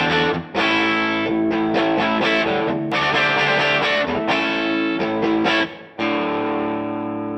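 Overdriven electric guitar played through a DVII guitar amplifier: chords, with two short breaks, ending on a chord left to ring.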